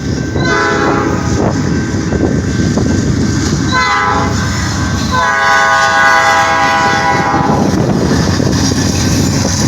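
Norfolk Southern diesel locomotive's multi-tone horn sounding three blasts: about a second long near the start, a short one about four seconds in, then a long one of over two seconds. Under it runs the steady rumble of the train passing the crossing.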